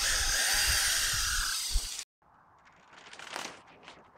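A corded power drill runs steadily with a high whine for about two seconds, driving out fasteners on a hoop house's rail, then stops abruptly. Faint rustling of the plastic greenhouse sheeting follows near the end.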